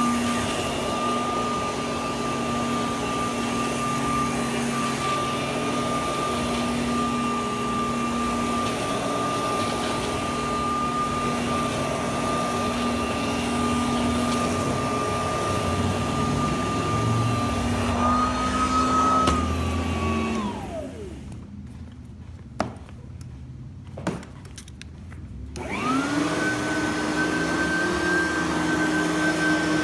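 Simplicity Freedom lightweight upright vacuum cleaner running with a steady motor whine. About two-thirds of the way through the motor is switched off and winds down, there are two clicks in the lull, and then it starts again and settles at a higher-pitched whine.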